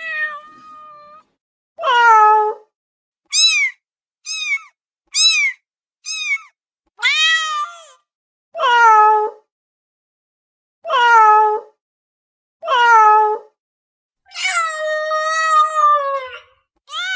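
Domestic cat meowing over and over, about ten separate meows: several full meows, a quick run of four short high-pitched ones in the middle, and one long drawn-out meow near the end.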